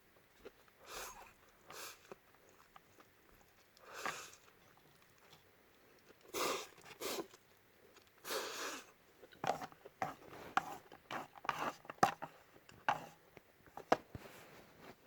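Close-up eating sounds of Peyoung instant yakisoba noodles: short, separate mouthfuls being chewed, then a quick run of sharp clicks and smacks in the second half.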